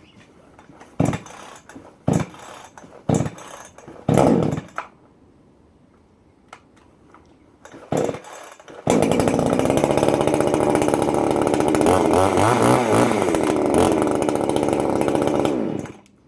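Baus 62cc two-stroke chainsaw being cold-started on choke: a few quick pulls of the starter cord about a second apart, another pull a few seconds later, then the engine catches about nine seconds in and runs steadily for around seven seconds before being switched off and cutting out suddenly.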